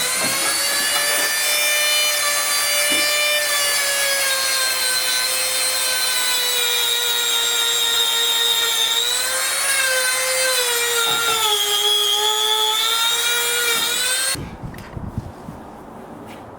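Electric motor of a power tool spinning up to a steady high whine and holding it. Its pitch sags briefly twice near the middle, as under load, and it shuts off sharply about two seconds before the end.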